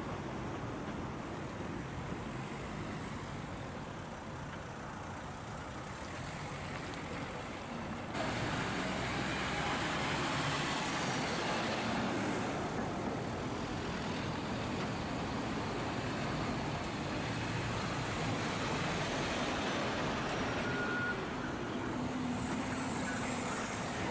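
Lorry engines running with steady road traffic noise; the noise jumps up suddenly about eight seconds in and stays louder.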